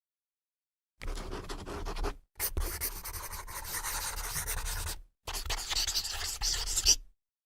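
Writing on paper: a pen scratching across the sheet in three runs of strokes with short breaks between them, the last ending in a sharper flick.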